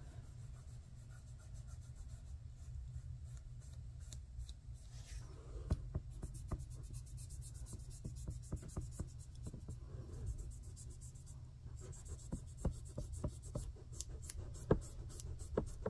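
Small applicator brush rubbing chrome nail powder into the half-cured gel top coat of a plastic nail tip: soft scratchy brushing strokes with light ticks and taps, thickest in the middle, over a steady low hum.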